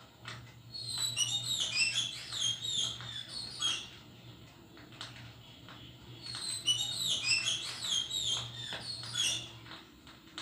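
Small animal squeaking: rapid, high-pitched, falling chirps in two bursts of about three seconds each, over a low steady hum that stops near the end.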